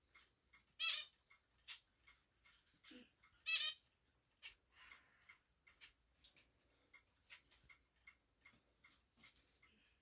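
Zebra finch giving two short, nasal calls, about a second in and again about three and a half seconds in. Faint ticks and taps come in between.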